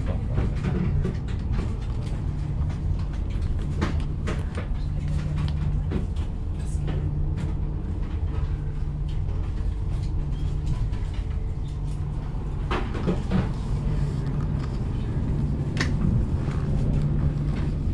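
Steady low rumble and hum inside the passenger cabin of an Italo AGV high-speed train under way, with a few sharp clicks and knocks, one about four seconds in and a short cluster past the middle.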